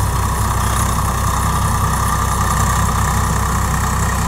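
Swaraj 855 FE tractor's three-cylinder diesel engine running steadily while driving a rotavator that tills the field.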